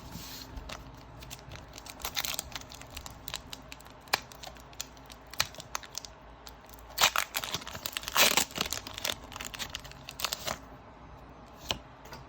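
A Pokémon Burning Shadows booster pack's foil wrapper being torn open and crinkled by hand, with two louder rips a little past the middle.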